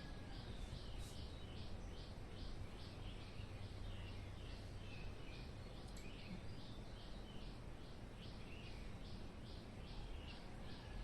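Birds chirping in a rapid, even run of short high chirps, about three a second, over a steady low background hum.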